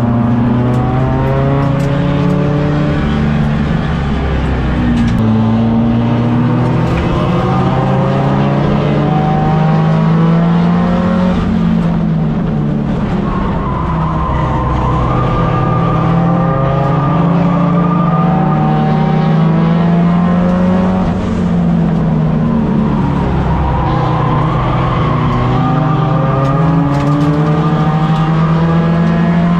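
A four-cylinder tuner race car engine heard from inside the cabin, running under load, its pitch climbing and easing back in slow waves about every ten seconds as it speeds up and lifts around the oval, over steady tyre and road noise.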